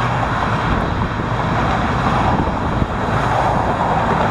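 Steady noise of road traffic crossing the bridge, mixed with wind on the microphone.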